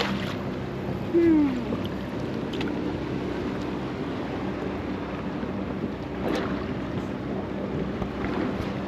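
Charter boat's engine running steadily, a low even hum under a haze of wind and water noise.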